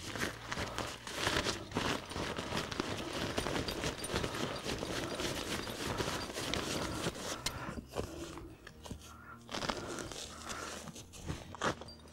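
Nylon fabric of a camouflage pop-up hide rustling and crinkling as its door panel is handled, with scuffing steps on grass; busiest over the first eight seconds, then quieter.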